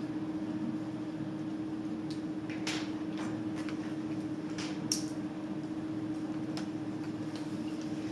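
A steady low electrical hum, with a few brief scratchy strokes: a cluster about two and a half to three seconds in and another about five seconds in.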